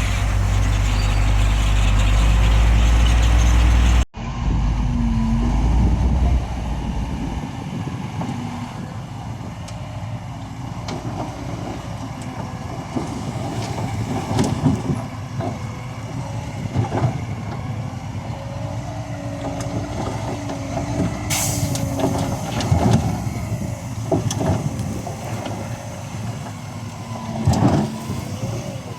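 Heavy earthmoving machinery running. A loud low engine drone cuts off suddenly about four seconds in, and a quieter engine runs on with scattered clanks and knocks and a short hiss near the three-quarter mark.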